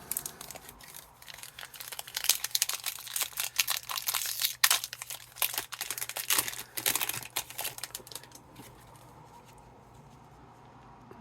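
Foil wrapper of a hockey card pack crinkling and tearing as it is opened, a dense crackle that stops about three seconds before the end.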